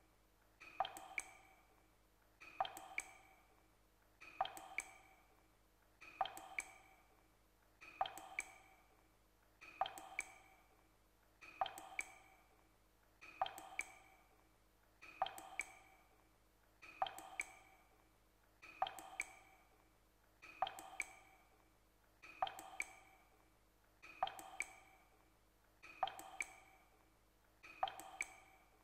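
Water dripping slowly and evenly, one drop about every 1.8 seconds, each a sharp plink with a short ringing tail.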